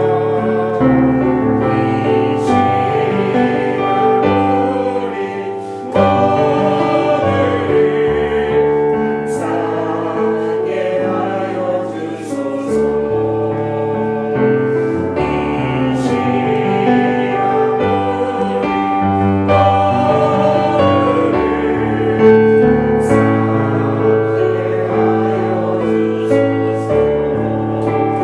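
A small church group singing a Korean hymn together with piano accompaniment, sustained held notes over a moving bass line.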